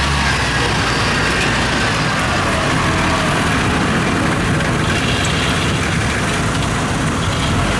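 Diesel engines of a rice combine harvester and a tracked rice-carrying cart running steadily.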